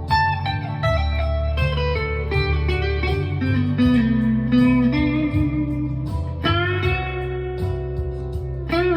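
Chapman ML1 Modern Standard electric guitar played clean on its coil-split neck pickup (single-coil tone): a slow melodic line of sustained single notes, some of them bent.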